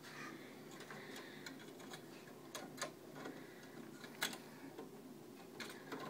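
Faint, scattered clicks and ticks of needle-nose pliers working the wires in a wall switch box, a few sharper clicks standing out near the middle.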